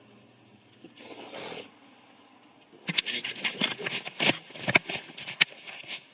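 Objects being handled: a short hiss about a second in, then from about three seconds in a quick, uneven run of clicks, scrapes and rattles.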